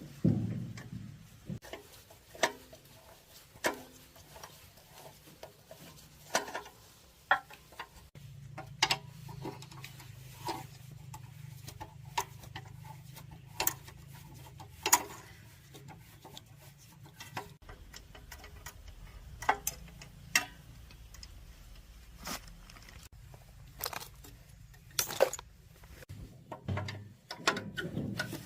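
Irregular metallic clicks and taps of hand tools and small engine parts being handled, one or two a second, over a faint low hum.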